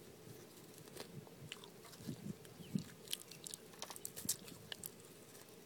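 Faint, scattered crinkling and crackling of Life Savers wrappers being picked apart by fingers, the candies stuck together in them.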